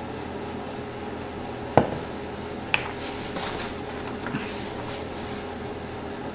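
A sharp knock, then a click about a second later, as of a bottle or tool set down on a bench, followed by a few seconds of light rubbing as metal-prep solution is applied and wiped onto the amplifier's metal heatsink. A steady low hum sits underneath.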